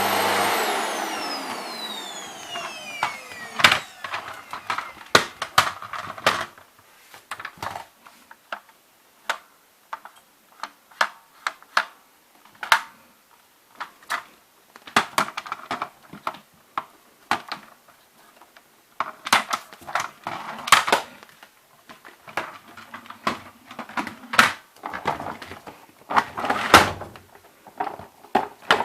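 Panasonic MC-PB5F-KK paper-bag vacuum cleaner's motor winding down after being switched off, its whine falling in pitch and fading over the first two seconds or so. Then a long run of irregular clicks and knocks.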